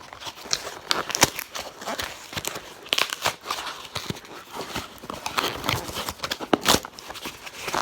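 Packaging being handled and opened by hand: irregular rustling and crinkling with scattered sharp clicks and taps.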